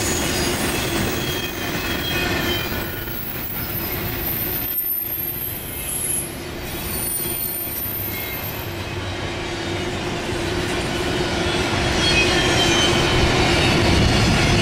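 Double-stack intermodal freight cars rolling by with a steady rumble, their wheels giving thin high-pitched squeals that come and go.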